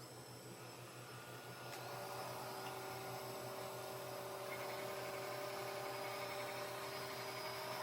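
Robot vacuum running: a steady motor hum with a whine, which comes in and gets louder about two seconds in, then holds steady.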